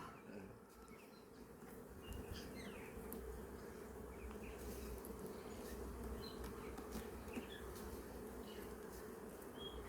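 Honey bees buzzing around an opened hive: a faint, steady hum that picks up about two seconds in. The bees are agitated by the hive being worked.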